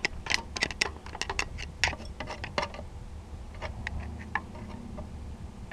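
Screwdriver tip ticking and scraping irregularly against the metal cooling fins of a lawn tractor's air-cooled engine as it digs out packed mouse-nest debris.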